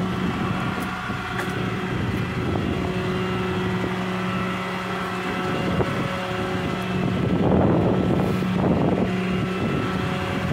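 A RAM 5500's 6.7 Cummins diesel engine idling steadily with a constant hum, and a brief rush of wind on the microphone about three-quarters of the way through.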